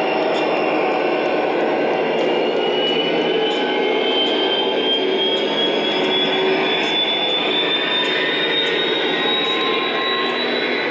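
O scale model train running along its track: a steady rolling rumble with a thin whine that slowly rises in pitch, and faint repeated clicks from the wheels over the rails.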